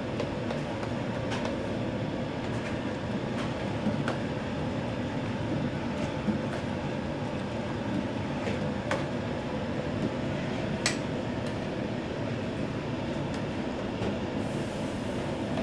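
Onions and meat being stir-fried in a wok over a high gas flame: a steady roaring rush of burner and sizzle, with the metal ladle scraping and clinking against the wok now and then, one sharper clink about two-thirds of the way through.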